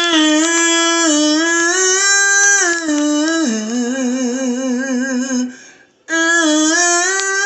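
A person's voice humming a slow tune in long held notes that step up and down in pitch, one passage wavering with vibrato, broken by a short pause near six seconds in.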